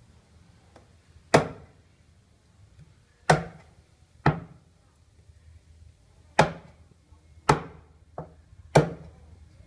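A heavy cleaver chopping goose pieces on a thick round wooden chopping block. It makes seven sharp chops, about one to two seconds apart, with a lighter one just before the last.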